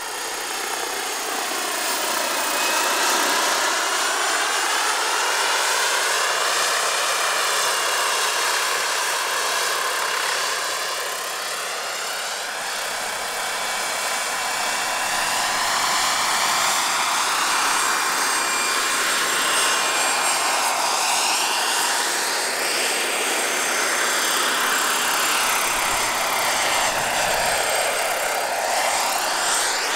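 Large-scale RC model of a Bell 47G-3B-1 helicopter in flight: engine and rotor sound rising and falling in pitch again and again as it flies back and forth, over a steady high whine.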